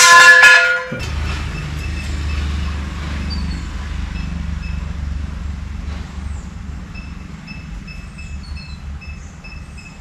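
A short, loud horn-like tone in the first second, then a vehicle engine running with a steady low rumble. Faint high beeps repeat a few times a second in the second half.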